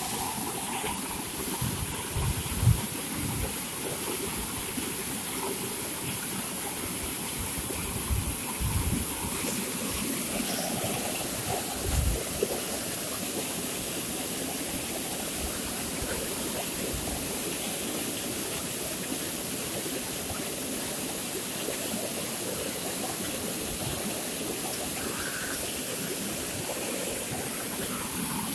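Water rushing steadily from several large pump outlet pipes and crashing into a concrete channel, churning white. A few brief low thumps break through it, the loudest about three seconds in.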